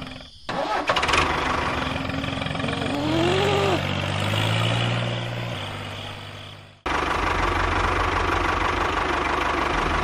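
A tractor-style engine running, its pitch rising for a couple of seconds in the middle. It cuts off abruptly about seven seconds in, and a different engine sound takes over with a fast, low throb.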